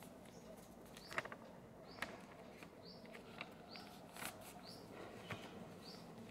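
Faint paper rustling and a few sharp crinkles as a sheet of paper is handled and creased into a paper airplane, while a bird repeats a short high chirp about once a second.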